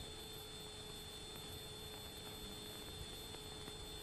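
Faint steady hiss with a thin steady hum: the background noise of a 1945 film soundtrack.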